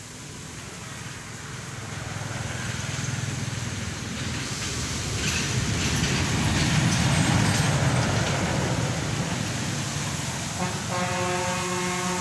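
A motor vehicle passing: engine and road noise swells over several seconds and then eases off. Near the end comes a steady pitched tone lasting about a second and a half.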